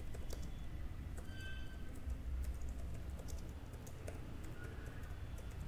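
Faint, irregular clicking of computer keyboard keys as a short phrase is typed, over a low steady hum.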